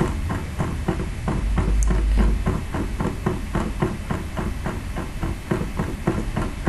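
Computer mouse scroll wheel clicking rapidly notch by notch, about six clicks a second, as a document is scrolled continuously. A brief low rumble comes in about a second and a half in.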